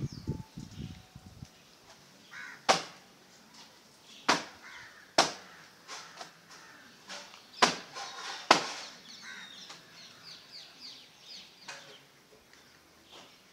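Five short, sharp calls or snaps spaced a second or two apart, followed by a run of small high bird chirps.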